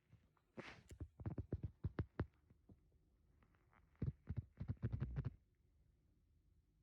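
A sleeping woman snoring faintly: two crackly snores about two seconds apart, each a run of rapid, irregular clicks lasting a second or more.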